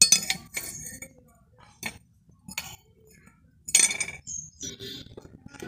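Metal clinks and knocks as a rusty iron bark knife is set down and shifted on a metal anvil block: a few separate sharp clinks, then a longer clatter about four seconds in.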